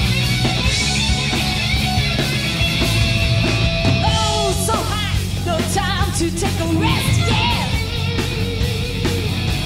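Live rock band playing heavy metal with distorted electric guitars, bass and drums. About four seconds in, a female lead vocal comes in, wavering with vibrato over the band.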